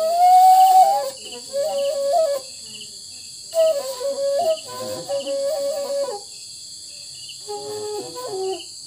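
Tripuri sumu, a long bamboo side-blown flute, playing a slow melody in three phrases of held notes with short breaks between them, the last phrase lower. Crickets chirp steadily underneath.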